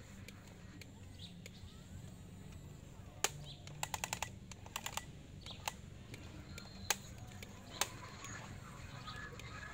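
Toy excavator working its arm into a dirt pile: sharp plastic clicks, a quick run of them about four seconds in and single ones after, over a low steady hum. Birds chirp faintly near the end.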